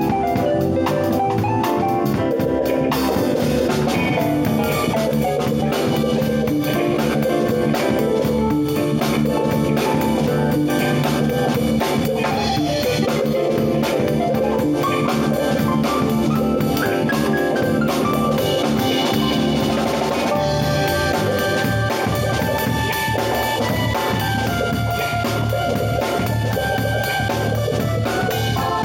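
Keyboard ensemble playing an upbeat jazz-fusion piece with drums: several keyboard parts, including mallet-like tones and a bass line, over a steady beat.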